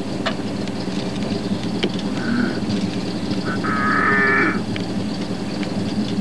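A vehicle engine idling steadily, with a short harsh bird call about two seconds in and a louder, longer cawing call about four seconds in.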